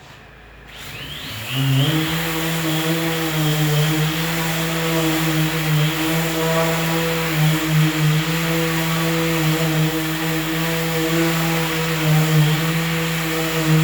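Electric orbital sander spinning up about a second in, then running steadily at its highest speed setting while sanding a car's steel tailgate panel. Its owner calls it very quiet.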